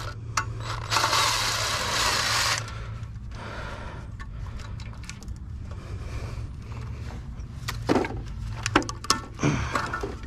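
Hands working on metal scrap to get the last screw out: a harsh scraping rush about a second in that lasts about a second and a half, then a few sharp clicks and knocks near the end, over a steady low hum.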